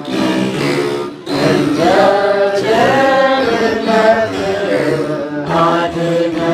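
A group of voices chanting an Ethiopian Orthodox begena hymn together, accompanied by begenas, the large Ethiopian lyre. The voices break off briefly about a second in, then come back louder with long held notes.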